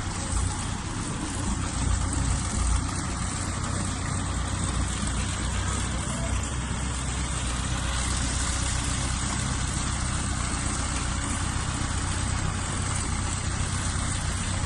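An engine idling steadily: a low, even hum with a steady hiss above it.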